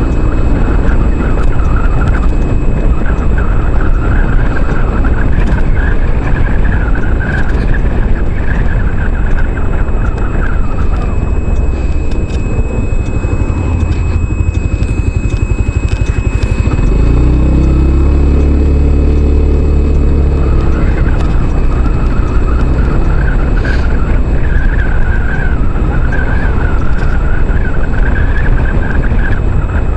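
Wind rushing over the microphone with the engine and road noise of a maxi-scooter on the move. For a few seconds past the middle the engine's pitched note stands out clearly above the wind.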